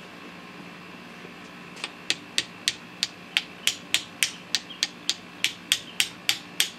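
Rapid, even hammer taps, about three a second, starting about two seconds in. A piston is being tapped down through a piston ring compressor into a cylinder bore of a Chevy 350 small-block.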